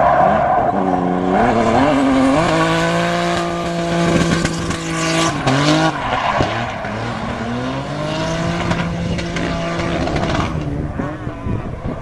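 Drift car engine revving hard and held high while the car slides through the corners, with tires squealing; about halfway through the revs drop sharply and climb again, and the sound fades near the end as the car moves away.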